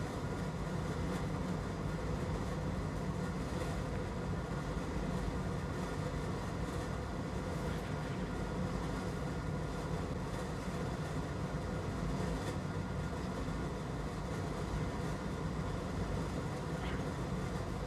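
Steady low hum of a fan running on the repair bench, even and unchanging throughout.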